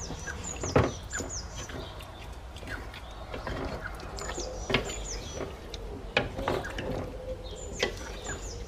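Wooden spatula stirring and scraping chicken pieces in a thick yogurt and spice mixture in a steel pot, with a few knocks against the pot, the sharpest about a second in. Short, high, quick-falling chirps come and go over it.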